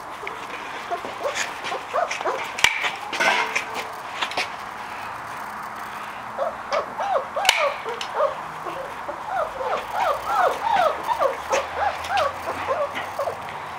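Young puppies whimpering and yipping in short high squeaks, a few at first and then many overlapping from about halfway through. A few sharp clicks stand out among the calls.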